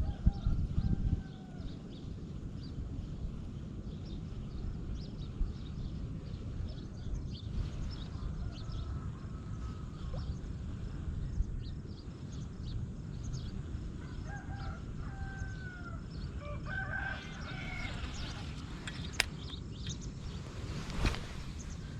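A rooster crowing in the distance a few times, over a steady low outdoor rumble. There are a few sharp clicks near the end.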